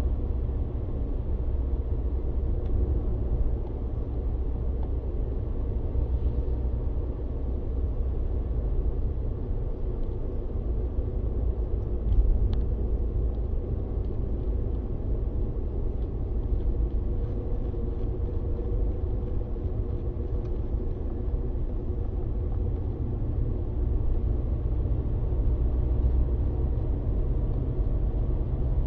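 Steady low rumble of a car driving along a road, heard from inside the cabin: engine and tyre noise, with one brief knock about twelve seconds in.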